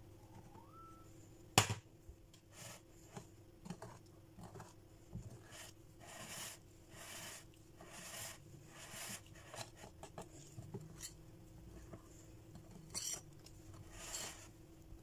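Wire whisk working flour into thick chocolate brownie batter in a glass bowl: a run of short, soft swishing strokes, with one sharp knock about a second and a half in.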